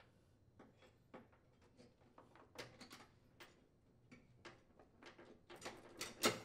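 Steel spring clip clicking and scraping against a riding mower's metal steering shaft as it is worked back into the shaft to secure it. A run of light, irregular metallic clicks grows louder toward the end, with the loudest click near the end.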